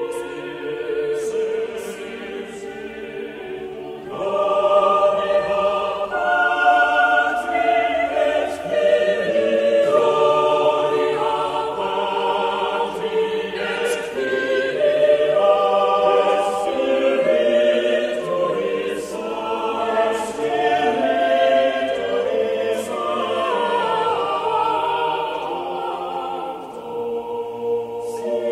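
A choir singing a slow sacred piece, several voices holding long notes that change every second or two.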